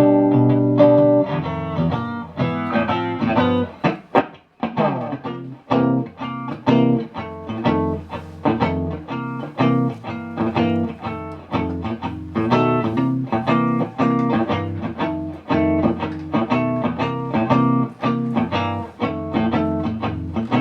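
Electric guitar played through an amplifier and speaker cabinet: a steady stream of quickly picked notes and chords, with a brief break about four seconds in.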